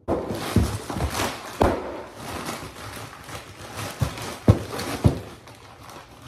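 Loud rustling handling noise with several dull knocks, starting abruptly.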